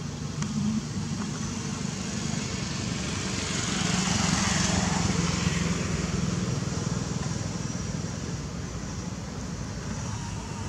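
Motor vehicle passing, its engine hum and road noise swelling to a peak about four seconds in and then fading, over steady background traffic noise.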